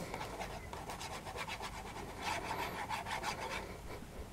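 Fine metal tip of an Art Glitter Glue applicator bottle scratching over a card disc as a line of glue is drawn on, a run of quick scratchy strokes, busiest in the middle.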